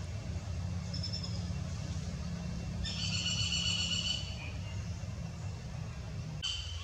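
High-pitched animal calls over a steady low rumble: a short call about a second in, a louder drawn-out squealing call about three seconds in that lasts about a second, and a brief call near the end.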